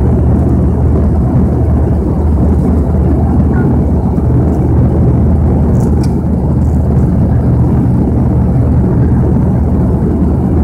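Cabin noise of a Bombardier Dash 8-100's twin turboprop engines and propellers in descent: a loud, steady low drone with a hum of propeller tones.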